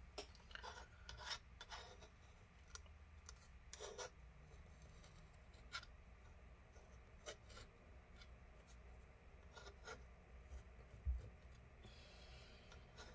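Faint, intermittent scraping and rubbing as old battery adhesive is worked off a MacBook Pro's aluminium case, with two light knocks near the end.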